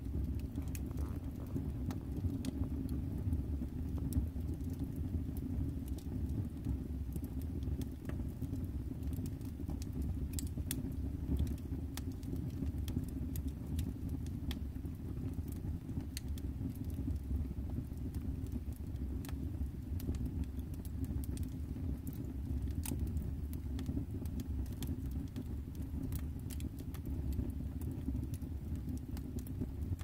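Wood fire burning in a brick fireplace: frequent sharp crackles and pops from the burning logs, irregularly spaced, over a steady low rumble.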